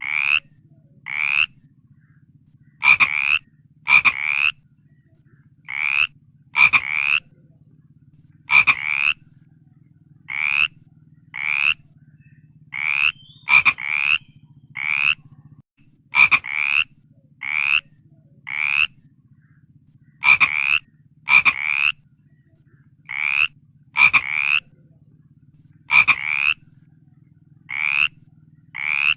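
Frogs croaking: short, rasping calls repeated about once a second, often in pairs, some starting with a sharp click, over a steady low hum.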